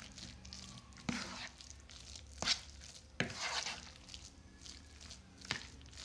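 Steel spoon stirring grainy, crumbly kalakand mixture in a bowl, cooked to the crumbly stage. Soft scraping and crunching, with four sharp knocks of the spoon against the bowl.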